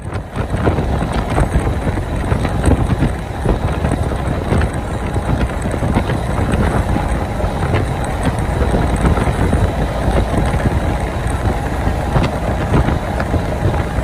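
Semi truck under way on the highway, heard from the cab: steady road and engine noise with a rough low rumble.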